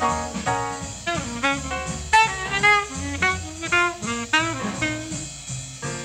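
1950 bebop studio recording: a horn plays fast running lines of quick notes over a walking bass and drums, with the dull, narrow sound of an old recording.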